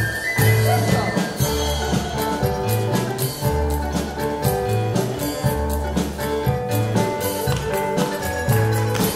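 Contra dance band playing a lively dance tune, with held melody notes over a pulsing bass line and a steady beat.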